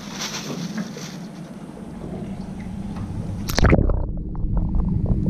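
Wind and water noise on an open boat deck. About three and a half seconds in there is a splash as a camera goes under the water, and then the sound turns to a muffled underwater rumble with scattered small clicks.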